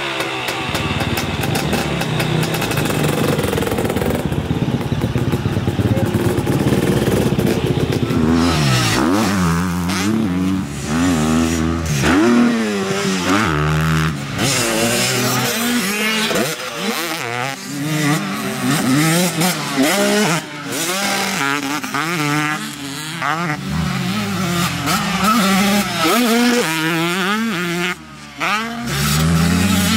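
KTM 250 SX single-cylinder two-stroke dirt bike engine running, steady at first, then revving up and falling back again and again, its pitch rising and dropping with each burst of throttle.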